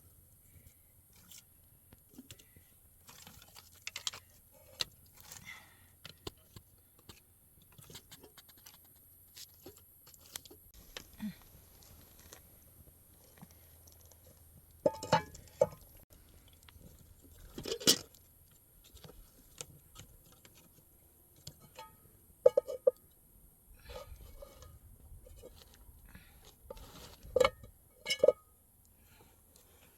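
Irregular small clicks, knocks and scrapes of objects being handled, with a few louder knocks about halfway through and near the end.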